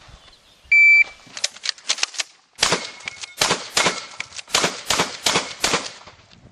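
Electronic shot timer beeping once, then a rapid string of about ten shotgun shots, roughly three a second, as a practical shotgun course of fire is shot on birdshot. Some shots are followed by a faint ringing of steel targets being hit.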